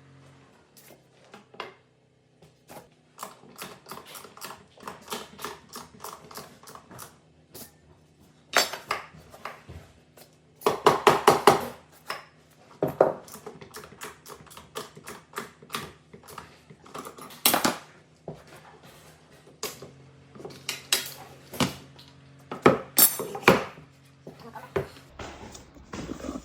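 Irregular clinks, taps and knocks of hard objects being handled, with several louder clattering flurries.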